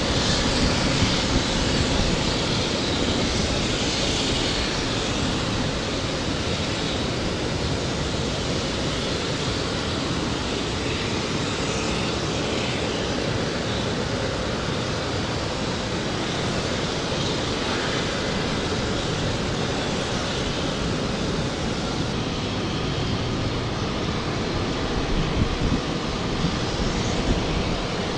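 Steady, even noise of a jet aircraft engine running at an airfield, with no change in pitch or level.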